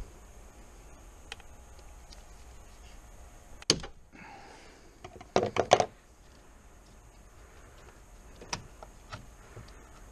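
Hand work with a screwdriver prying a connector and its clip off a valve: a sharp click just before the four-second mark, a quick burst of clicks and knocks about a second later, and one more small click near the end.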